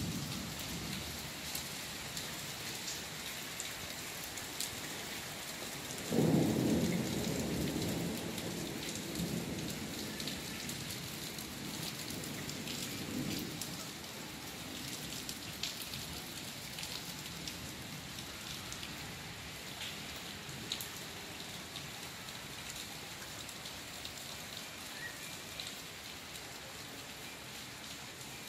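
Steady rain falling, with the sharp ticks of single drops hitting hard surfaces. About six seconds in, a roll of thunder rumbles loudly for a couple of seconds and dies away over several more.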